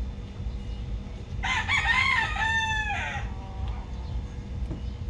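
Rooster crowing once: a drawn-out call of several rising-and-falling syllables, starting about a second and a half in. A low steady rumble sits underneath.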